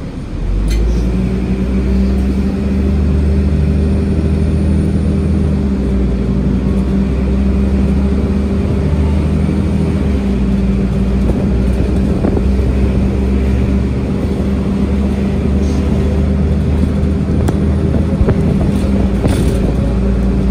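Nova Bus LFS city bus heard from on board: its diesel engine picks up about half a second in as the bus pulls away, then runs steadily under way, with a steady whine from the drivetrain.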